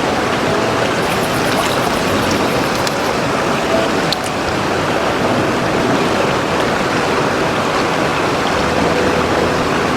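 Babbling brook: a steady rush of flowing water, with a couple of faint clicks about four seconds in.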